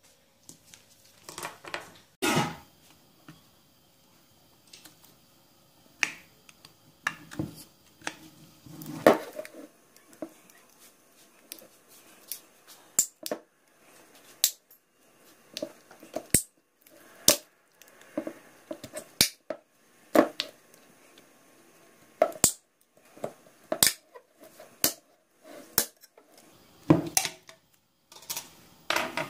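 Small screwdriver prying the glued plastic top cover off a 12 V sealed lead-acid battery: many irregular sharp clicks and snaps of plastic, with short scrapes in between.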